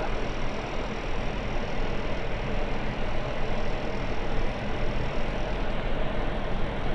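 Steady flight-deck noise of an Airbus A321 on final approach: a continuous rush of airflow and engine noise with a low hum underneath.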